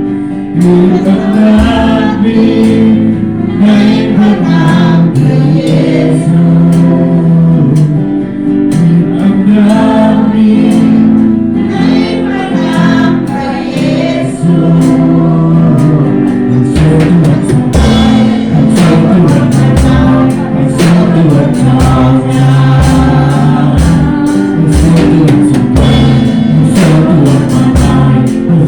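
Gospel worship music: a group singing together over a band, with drums entering about halfway through.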